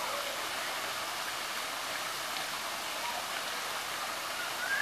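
Steady spray of water showering down and splashing into a shallow pool.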